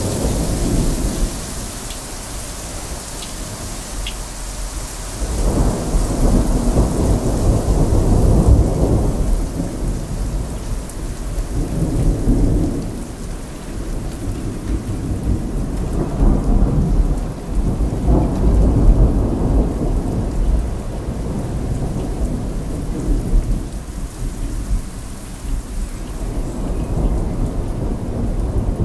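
Steady rain falling in a thunderstorm, with thunder rumbling in several long, low rolls that swell and fade every few seconds.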